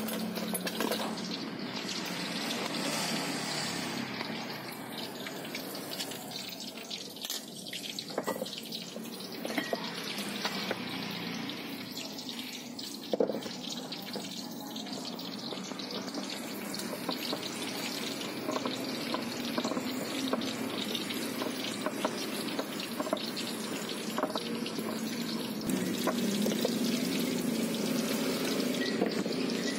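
Palm sugar, water and peanuts being worked on a ceramic plate with a wooden pestle to make peanut sauce: wet sloshing and grinding over a steady noisy background, with one sharp knock about 13 seconds in.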